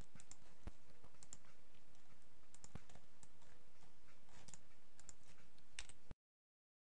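Computer mouse clicks, a handful of sharp, scattered clicks over a steady faint hiss; the sound cuts off to dead silence about six seconds in.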